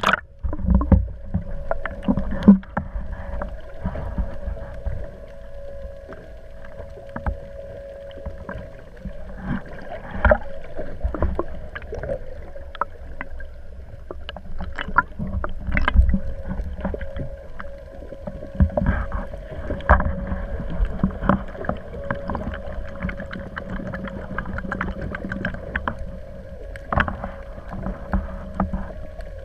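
Small fishing boat on the water: a steady hum with irregular knocks and thumps throughout.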